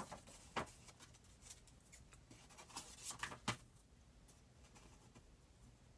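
Faint paper handling: a folded sheet of patterned craft paper picked up and opened out on a table, giving a few short rustles and taps about half a second in and again around three seconds in, then quiet.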